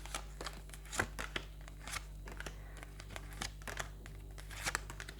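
Tarot cards being handled and turned over: scattered soft clicks and rustles, a few sharper ones, over a faint steady low hum.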